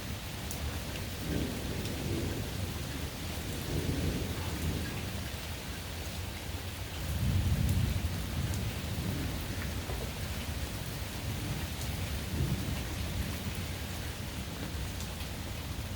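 Steady summer rain pattering, with rolls of thunder rumbling low: smaller ones a second or two in and around four seconds, and the loudest starting about seven seconds in and lasting a couple of seconds.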